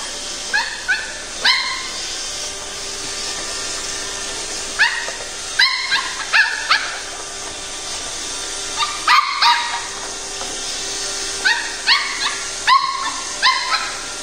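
Pembroke Welsh Corgi puppy yapping at a robot vacuum in several clusters of short, high yips. The Roomba's steady running hum sits underneath.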